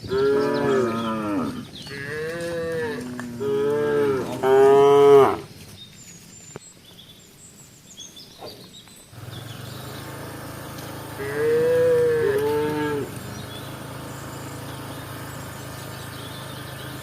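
Cows mooing: four calls in quick succession, then a pause and one more call a few seconds later. About halfway through, a steady low hum starts up under the calls.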